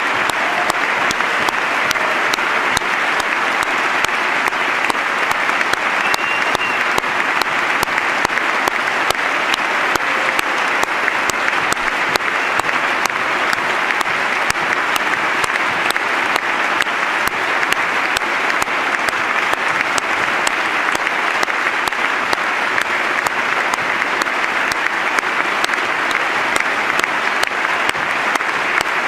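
Large audience clapping in long, steady, unbroken applause.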